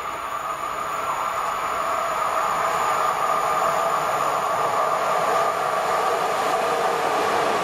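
EP09 electric locomotive hauling an InterCity passenger train, approaching through the station: the rumble of its wheels on the rails grows steadily louder over the first few seconds, then holds steady as the locomotive and coaches draw level.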